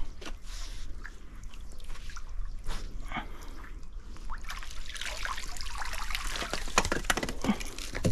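Water dripping and trickling off a wet magnet-fishing rope as it is hauled up out of the river, with scattered clicks and rubbing sounds that grow busier in the second half.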